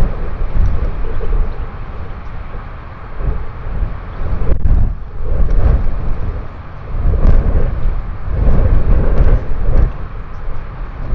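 Strong wind gusting over the microphone: a loud, low rumble that swells and drops every second or two.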